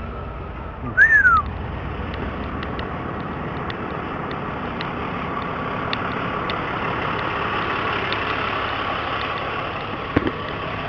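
A vehicle engine running steadily at idle, with a short falling whistle about a second in and faint light ticks throughout.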